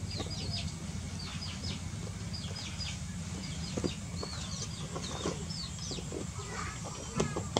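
Birds chirping: short, high, falling chirps in quick groups of two to four, repeating over a steady low rumble. A couple of sharp knocks come near the end.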